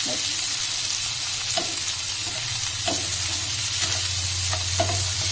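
Chopped onions and tomatoes sizzling in butter and oil in a nonstick kadhai, with a spatula stirring and scraping, knocking the pan several times. The masala is at the stage where the onion and tomato start to release their oil.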